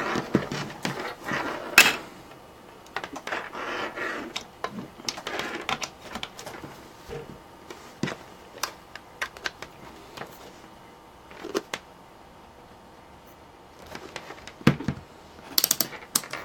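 Hands handling a laptop power adapter cord and plug on a desk: scattered clicks, taps and light knocks at irregular intervals, with a quiet lull late on and a quick cluster of clicks near the end.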